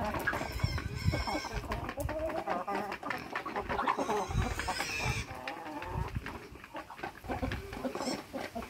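A flock of chickens clucking as they feed, many short calls overlapping.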